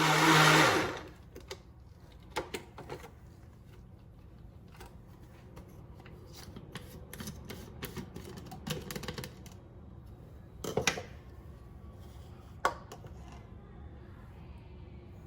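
Keys being pressed on a handheld label maker: scattered small clicks, after a loud noisy burst with a low hum in the first second.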